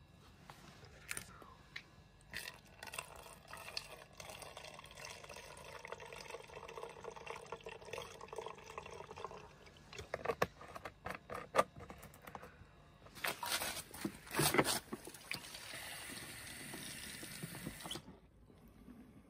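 Liquid snow foam shampoo glugging as it is poured into the empty plastic bottle of a foam lance, with a ringing tone that holds for several seconds. Then come plastic knocks and clicks as the bottles are handled, and water from an outdoor tap runs into the bottle near the end.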